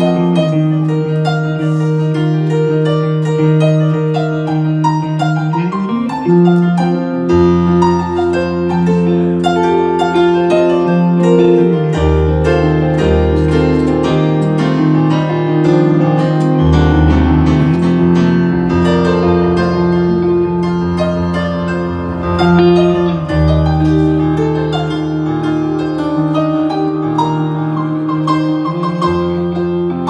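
Keyboard and electric guitar playing live together: held keyboard chords with melodic notes over them and a low bass line that comes in about seven seconds in.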